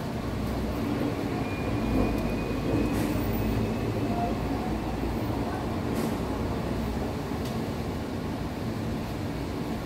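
Steady low rumbling room noise, with faint distant voices in it and a few light clicks about three and six seconds in.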